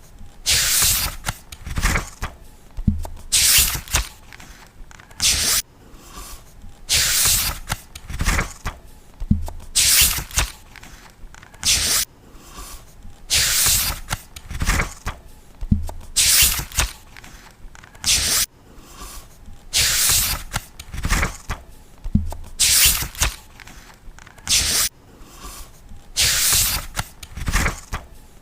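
Paper book pages being flipped one after another, each turn a short papery swish, with a second or two between turns.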